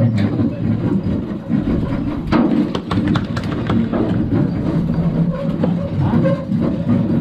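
Steady low rumble aboard a fishing boat, with a plastic bag holding a fish crinkling and a few short sharp clicks between about two and three and a half seconds in.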